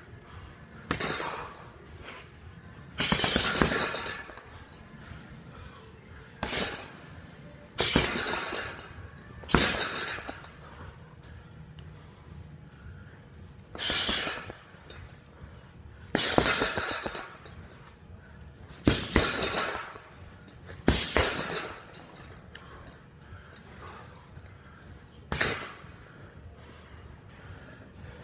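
Gloved punches landing on a heavy punching bag, each setting its hanging chains jingling: about a dozen separate hits at an irregular pace, a second to a few seconds apart.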